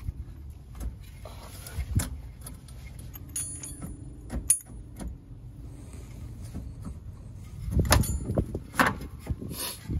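The front hub and suspension of a 1994 Mazda Miata being pulled and swung out by hand: scattered knocks and short metallic clinks, with a louder spell of clunks about eight seconds in.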